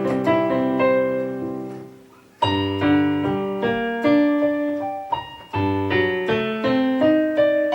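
Korg N364 keyboard being played with a piano sound: a run of chords and melody notes, each ringing on, with a short break about two seconds in. The playing comes through clean, without the strange noise the keyboard was being repaired for: the fault appears fixed.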